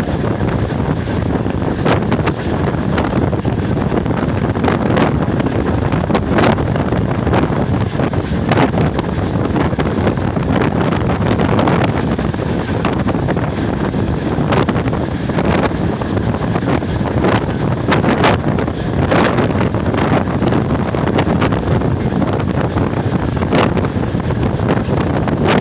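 Steady rumble of a moving passenger train's wheels on the track, heard from the coach door with wind rushing over the microphone, and occasional sharp clicks.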